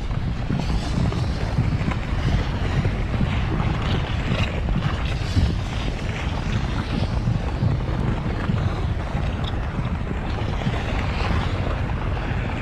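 Molten lava flowing: a steady deep rumble with a crackling hiss above it.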